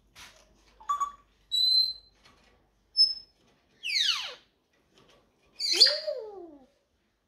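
African grey parrot giving a string of whistles and calls: a few short high notes and a steady high whistle, a long whistle sliding steeply down about four seconds in, then a louder, harsher call with a bending pitch near the end.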